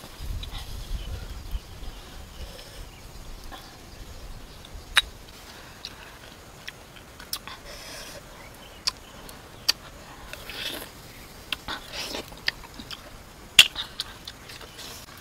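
Eating grilled freshwater clams: scattered sharp clicks of clam shells and short slurping and chewing sounds, the loudest click near the end. A low rumble in the first second or so.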